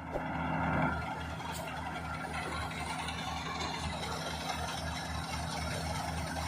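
Combine harvester running steadily, its diesel engine and threshing machinery giving a continuous mechanical drone with a low, even throb.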